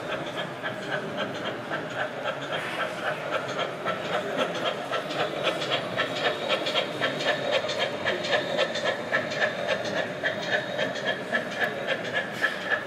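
Model pannier tank steam locomotive running with a train of goods vans: a regular chuffing beat, about two to three strokes a second, over a steady whine and the clicking of wheels on rail. The beat grows stronger about four seconds in.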